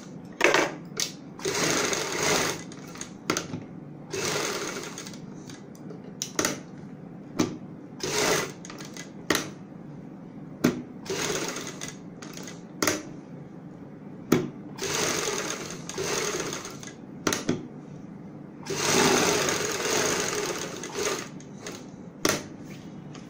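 Sewing machine stitching fabric along a buckram edge in repeated stop-start runs, mostly short bursts, with a longer run of about two seconds near the end.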